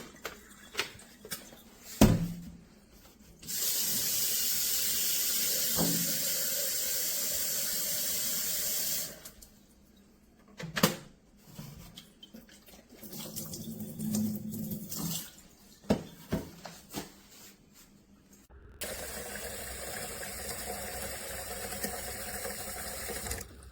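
Tap water running into a plastic water filter pitcher for about five seconds, with knocks and clicks of the plastic pitcher and its lid being handled before and after. Another steady stretch of running water starts in the last five seconds.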